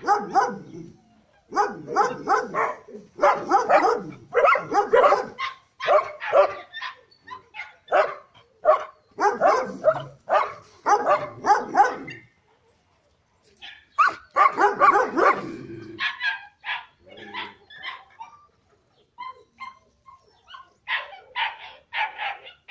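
Dogs barking over and over in fast runs of short barks. They pause briefly about halfway, start again loudly, bark only now and then for a while, then break into another run near the end.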